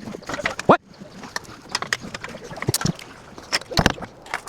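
Irregular clicks and knocks of tools and car parts being handled during suspension work, with a brief rising squeak about two thirds of a second in.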